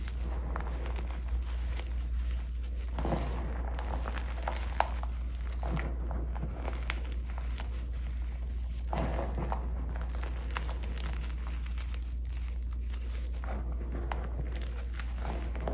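Hands squeezing and crumbling soft dyed gym chalk blocks: irregular small crunches and crackles, with a few heavier crushing spells, over a low steady hum.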